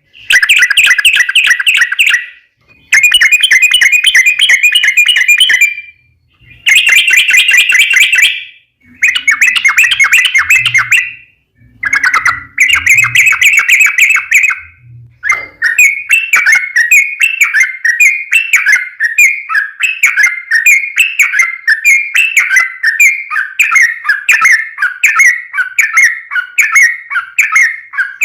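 Yellow-vented bulbul (trucukan) singing loud, rapid chattering phrases, a lure song for other trucukan. For the first half it sings in bursts of a couple of seconds with short gaps, then from about halfway it keeps up one unbroken run of quick repeated phrases.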